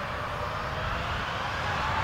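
Jet engines of a twin-engine airliner rolling along the runway: a steady jet noise with a faint high whine and low rumble, slowly getting louder.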